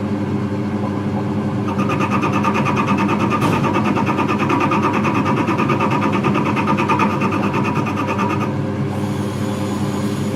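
A workshop machine running steadily with a constant hum. A higher, rapidly pulsing buzz joins about two seconds in and drops away before the end.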